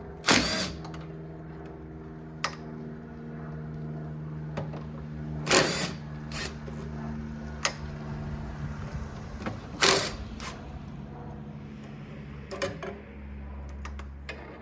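Metal parts being knocked and handled during engine-bay disassembly: three loud clanks about a third of a second, five and a half seconds and ten seconds in, with lighter clicks between. A steady hum of several notes from an unseen machine runs beneath.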